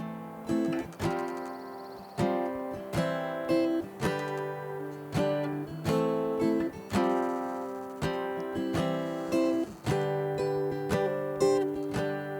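Acoustic guitar strumming chords, each stroke ringing out and fading before the next, playing the instrumental introduction to a song.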